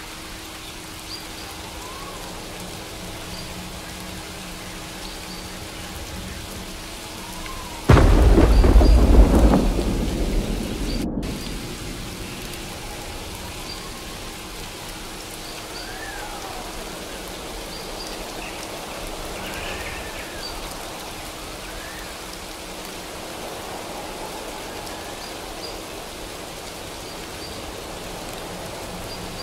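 Steady rain falling, with a sudden thunderclap about eight seconds in that rumbles and fades away over about four seconds. Faint gliding tones and a low steady hum sit under the rain.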